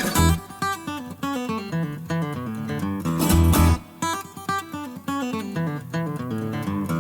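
Background music: plucked and strummed acoustic guitar with a steady rhythm.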